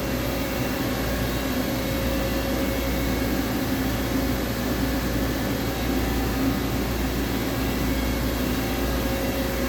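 DN Solutions DNM 5700S CNC vertical machining center running under power: a steady mechanical hum with a constant tone over it.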